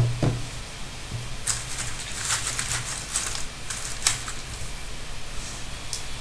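A thump at the start, then a run of light clicks and rustles at a desk over a low steady hum.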